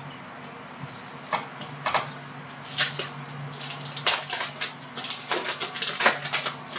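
Prizm trading cards being handled by hand: a few scattered scrapes and flicks, then a quick run of card flicks and rustles from about four seconds in.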